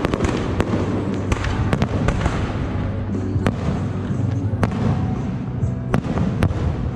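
Aerial firework shells bursting overhead: a string of sharp bangs at irregular intervals over a dense crackle.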